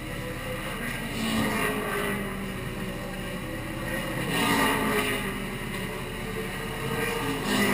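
Race car engines rising and falling in three swells a few seconds apart, their pitch sliding as each one comes and goes.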